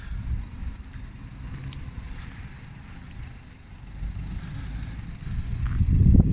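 Wind buffeting the phone's microphone: an uneven low rumble that swells into a louder gust near the end.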